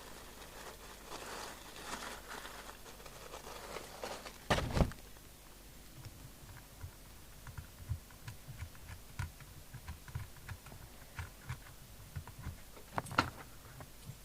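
Handling noises of equipment on a workbench: a sharp knock about five seconds in, then a run of soft, irregular taps and small clicks, and one sharp click near the end.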